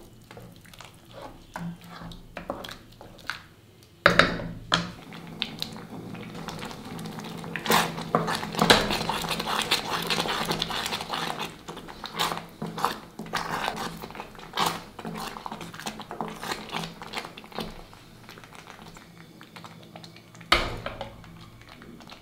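A ladle stirring thick sweet pongal in a pressure cooker pot, with irregular scrapes and knocks of the ladle against the metal pot, busiest from about eight to twelve seconds in, with a few louder knocks.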